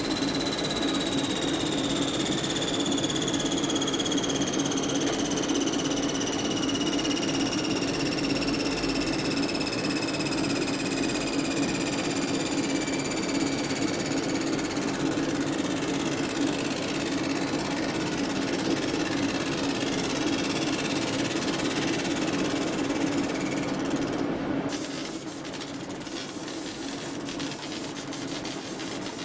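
Laser engraving machine running while it marks denim: a steady hum over an airy rushing noise, with a faint whine slowly falling in pitch through the first half. About 24 seconds in the sound drops suddenly to a quieter level, with faint ticking.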